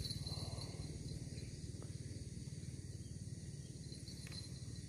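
Insects trilling steadily in high thin tones over a low steady rumble, with a couple of faint ticks.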